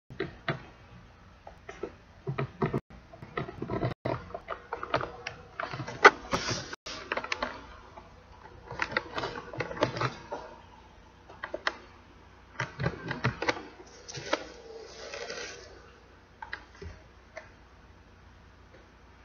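Irregular clicks and rustles from a handheld camera being handled and moved, dying away about three seconds before the end.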